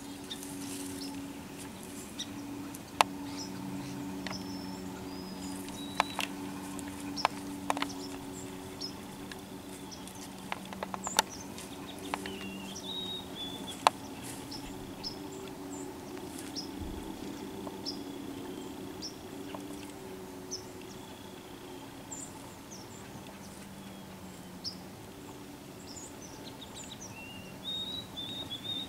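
Whitetail deer stepping through dry grass and brush, with scattered rustles and a few sharp twig snaps and crackles, mostly in the first half. Small birds chirp high over a low steady hum.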